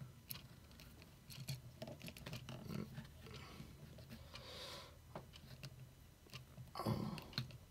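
Faint handling noise of a plastic action figure being turned over in the hand: scattered small clicks and soft rubbing, with a brief louder rustle near the end.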